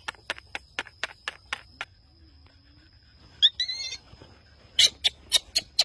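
Baby monkey squealing once, short and high-pitched, about three and a half seconds in, after a run of quick sharp clicks at about five a second; a few more sharp clicks come near the end.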